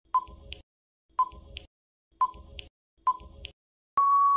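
Quiz countdown timer sound effect: a short electronic beep once a second, four times, then a longer steady beep near the end marking time out.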